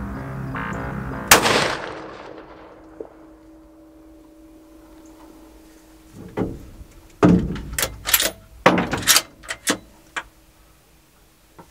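A single rifle shot about a second in, a sharp crack with a long echoing decay. Several seconds later comes a quick cluster of loud knocks and clacks.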